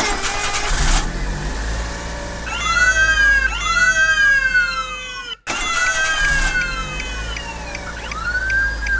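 A siren-like wail, its pitch rising and falling over about a second each time, repeated in overlapping waves over a steady low hum. It cuts out abruptly for a moment about five and a half seconds in, then starts again.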